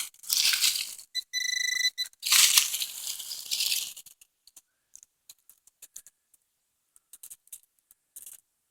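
Digging and scraping through leaf litter and rooty soil, with a handheld metal-detector pinpointer giving a steady high beep for under a second about a second in. The dig stops after about four seconds, leaving only faint scattered clicks.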